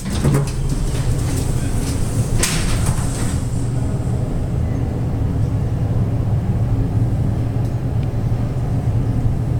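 Montgomery hydraulic elevator running, heard from inside the cab as a steady low hum, with a brief rushing noise about two and a half seconds in.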